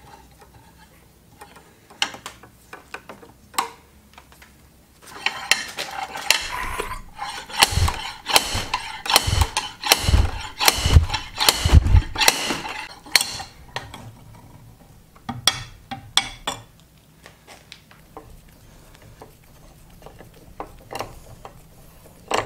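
Slide-hammer axle puller threaded into the end of a power steering rack, worked to pull the rack shaft and its seal out of the housing: metal scraping and clanking, with about five heavy knocks in the middle, then a few light clicks.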